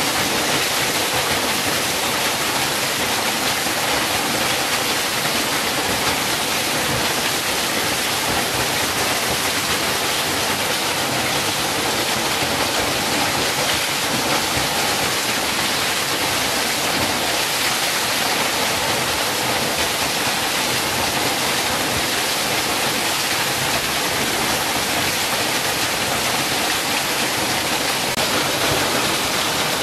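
Small waterfall pouring and splashing onto rocks close by, a steady, even rush of water.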